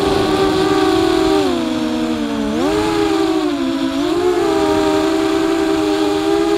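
FPV drone's electric motors and propellers whining. The pitch drops as the throttle eases off about one and a half seconds in, jumps back up near two and a half seconds, dips a little again around four seconds, then holds steady.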